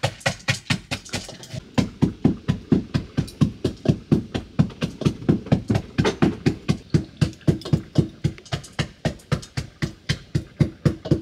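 Rapid, steady chopping with a knife on a wooden cutting board, about four or five knocks a second.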